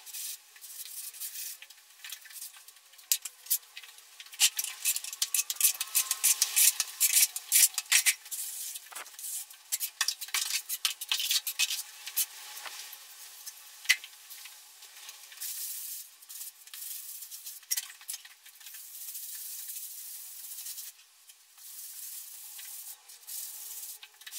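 A hand float rubbing and scraping over fresh lime plaster on a wall: an irregular gritty rasping in uneven strokes, full of small clicks from grit in the plaster.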